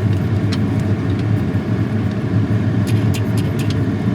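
GE side-by-side refrigerator's ice dispenser auger motor running with a steady low hum, with a few light clicks about three seconds in. Its drive bracket is stripped and just keeps spinning without turning the auger, so the dispenser sounds like it is working but no ice comes out.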